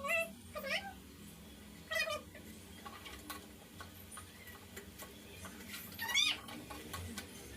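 A cat meowing: four short calls that rise and fall in pitch, the last and loudest about six seconds in.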